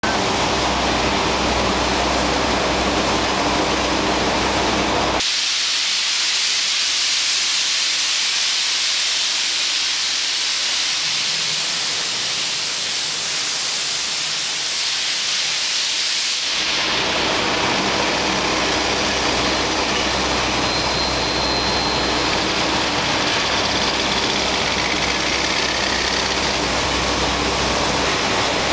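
Paper machine's reel section running: a steady mechanical din of its drive motor, gearbox and turning rollers, a low hum under a strong hiss. About five seconds in the low hum cuts out abruptly, leaving only the hiss, and it comes back just as suddenly about eleven seconds later.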